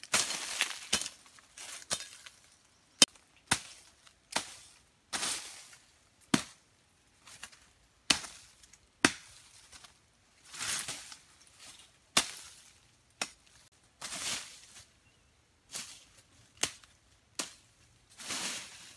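A blade chopping through small saplings and undergrowth: sharp, irregular strokes about once a second, mixed every few seconds with longer rustles of leaves and stems being pulled.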